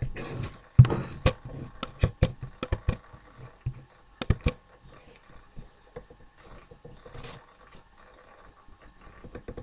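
Irregular sharp clicks of a computer keyboard and mouse, a dozen or so, most of them in the first half, with a short rustle at the start.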